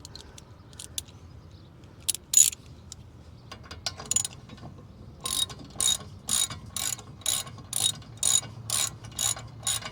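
Hand ratchet wrench clicking as it runs a 15 mm brake caliper bracket bolt in. After a couple of separate strokes, it settles into a steady back-and-forth of about two clicking strokes a second.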